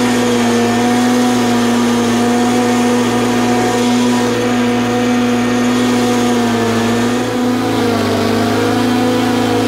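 Stand-on commercial mower engine running steadily while mowing. Its pitch shifts slightly about three quarters of the way through.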